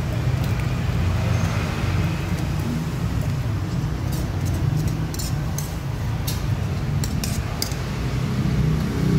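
Metal spoon scraping and clinking against a metal serving pan as cooked seblak is scooped into a ceramic bowl, with several sharp clinks in the second half. Under it runs a steady low rumble.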